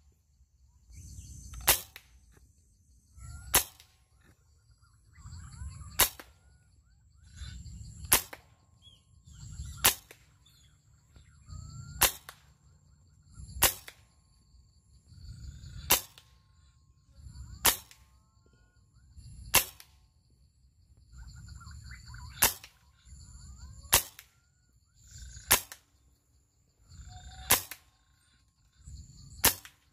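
Air rifle shots, one sharp report about every two seconds, about fifteen in all, each preceded by a second or so of low rumble. Short rising bird calls sound faintly between the shots.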